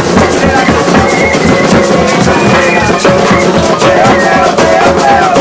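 Music with a drum kit keeping a steady beat under a melody line.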